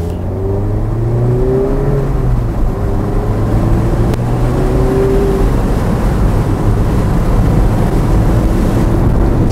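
Mazda MX-5 RF's four-cylinder engine accelerating hard, its pitch climbing over the first two seconds and again about five seconds in. Wind and road noise build as the speed rises, heard from inside the open-topped car.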